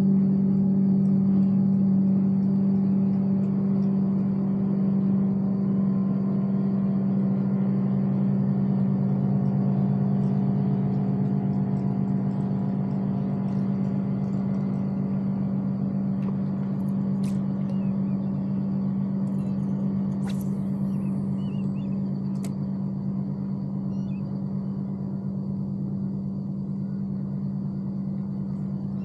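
Steady low motor hum holding one pitch and slowly fading, with a few faint sharp clicks in its second half.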